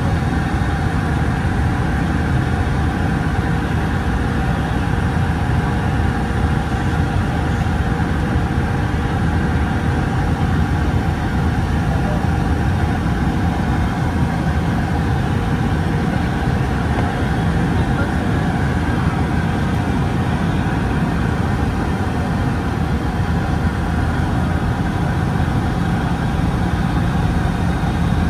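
Steady jet-airliner cabin noise inside a Boeing 757-200: a constant engine and airflow drone with a few faint steady tones, holding the same level throughout.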